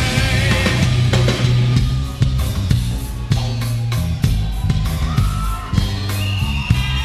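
Live nu-metal band playing a song at full volume: heavy, down-tuned seven-string guitars and bass over a pounding drum kit, with vocals.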